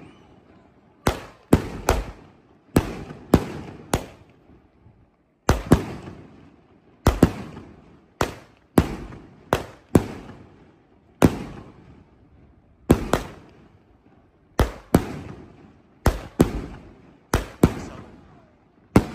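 A multi-shot consumer firework cake firing shot after shot: about two dozen sharp bangs, often in close pairs, roughly one or two a second and unevenly spaced, each fading out quickly.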